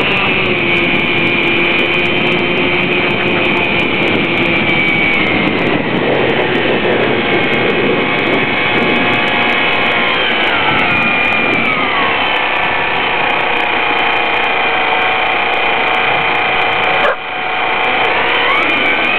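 Traxxas Villain RC boat's electric motor whining at speed, heard from on board. The pitch drops a couple of times as the throttle eases, cuts out briefly near the end, then climbs again.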